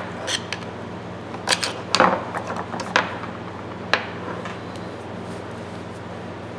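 Metal hand tools being handled: several separate sharp clicks and knocks, irregularly spaced over the first four seconds, then only a steady low hum.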